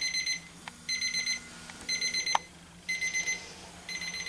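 Casio digital alarm clock going off: quick trains of high beeps, about eight to a group, a group roughly every second. One short knock sounds about two and a half seconds in.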